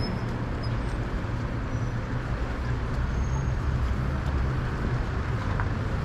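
Steady city traffic noise, a low, even rumble of road vehicles.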